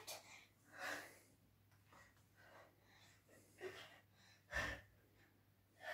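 A girl's faint, hard breathing from exercise: about five short breaths spread through, the loudest a little past the middle.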